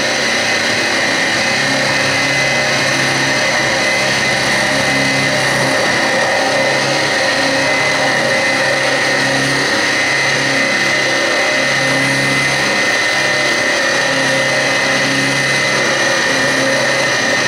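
Grizzly G0704 CNC milling machine cutting a metal plate with a quarter-inch four-flute carbide end mill. There is a steady high whine throughout, and a lower hum comes and goes every second or so.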